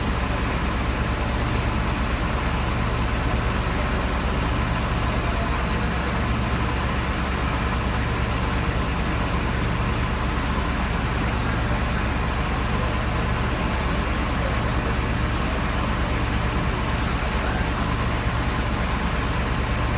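Heavy truck's diesel engine running at a steady, unchanging speed with a deep drone, the kind of constant-speed running that drives a crane hoist as it lifts an overturned car.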